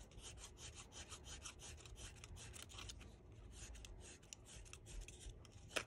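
Small embossing stylus pressed hard and pulled down across paper petals again and again: faint, quick scratchy rubbing strokes, with one slightly louder stroke near the end.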